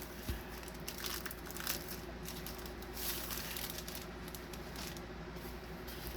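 Soft, scattered rustling and crinkling of plastic packaging as a diamond-painting kit is handled, over a faint steady hum.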